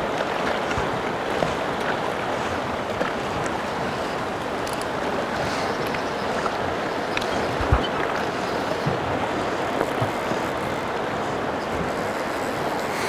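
Steady rushing of a river running over rocky riffles, with one low thump about eight seconds in.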